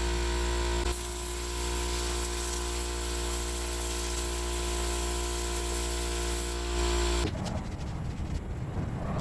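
A vacuum motor running steadily with a hum, with a louder airy rushing hiss for most of the time as it draws in air and dirt; the motor stops about seven seconds in.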